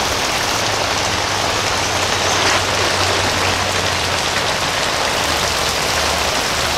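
Rain pouring down steadily, a dense even hiss of water, with a low steady hum underneath.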